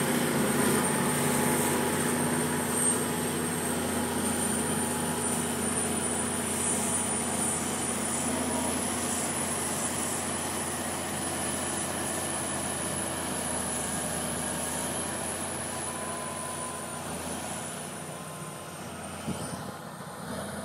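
John Deere 9630 tractor's diesel engine pulling two towed scrapers as they load dirt: a steady engine drone with a thin high whine over it, gradually getting quieter as the rig moves on.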